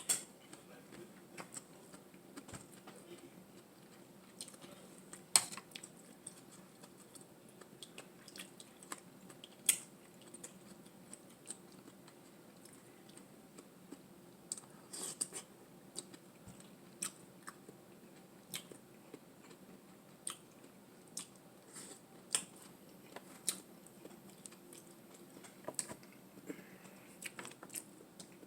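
Close-miked eating: chewing and biting, with scattered sharp clicks and crunches over a faint steady hum.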